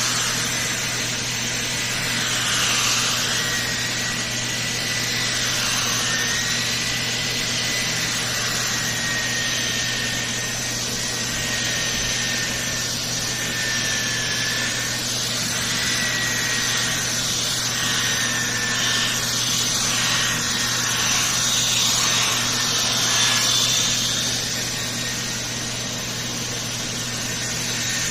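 Power tool running continuously and working against a surface, with a rough rubbing, grinding noise. Its motor whine wavers and sags slightly in pitch as it is loaded.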